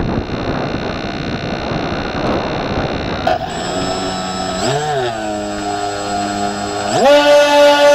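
Wind buffeting the microphone of the plane's onboard camera, then the twin electric motors of a Multiplex TwinStar RC plane start up about three seconds in, wobble in pitch, and near the end sweep up sharply to a loud, steady high whine as the throttle goes to full for launch.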